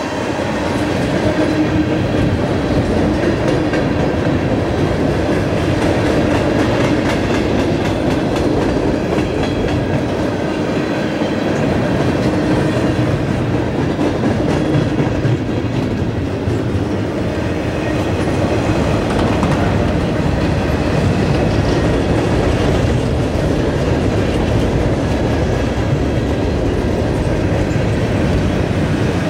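Cars of a mixed freight train rolling past: a steady rumble and clatter of steel wheels on the rails.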